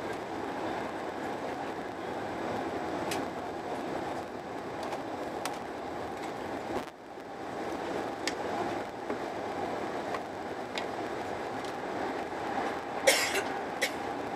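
Eurostar Italia train running at speed, heard from inside the passenger car as a steady rumble that dips briefly about halfway through. A few light clicks, and a short louder noise about a second before the end.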